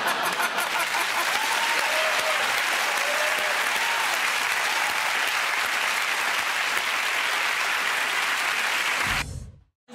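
Studio audience applauding steadily; it cuts off suddenly about a second before the end.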